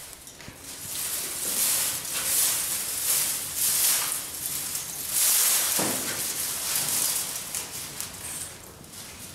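Dry straw rustling and crackling as it is fed into a burning fire pit, a hissing noise that comes in surges, swelling about a second in and fading near the end.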